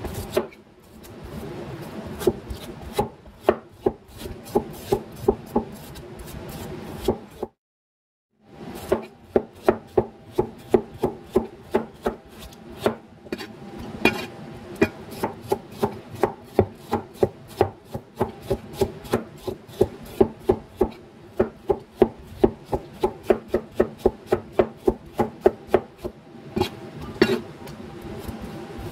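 Chef's knife slicing a peeled bamboo shoot on a cutting board, the blade knocking the board with each cut, about two to three strokes a second. A short break about eight seconds in.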